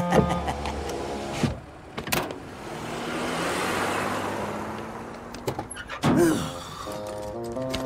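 Cartoon sound effect of a car driving away past the listener: a smooth whoosh that swells and fades over about three seconds. Short music phrases come before and after it, and a click comes just before the whoosh.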